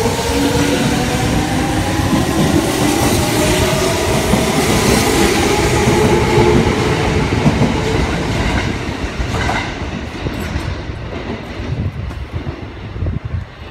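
Kintetsu 3200 series electric train accelerating away past the platform. Its traction motors give a whine that rises in pitch, over the rumble and clatter of the wheels on the rails. The whine fades about halfway through, and the rumble dies away over the last few seconds as the train leaves.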